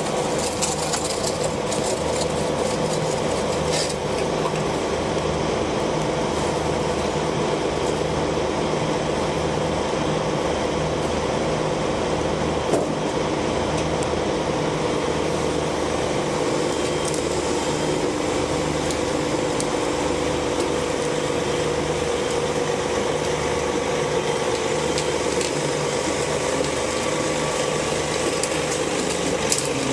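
Caterpillar 374 excavator's Cat C15 ACERT six-cylinder diesel running steadily with a low pulsing throb, with a couple of faint clicks.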